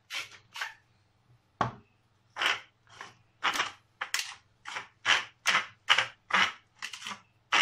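Wooden salt and pepper grinders twisted by hand over raw chicken, making a run of short grinding crunches about two to three a second. The run follows a sharp knock about a second and a half in.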